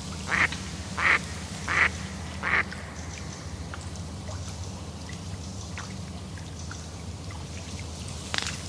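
A duck quacking four times in a quick even series, over a low steady rumble.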